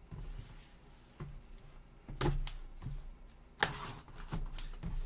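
A cardboard box being handled and its seal broken open: a few short scrapes and rustles of cardboard, the loudest about three and a half seconds in.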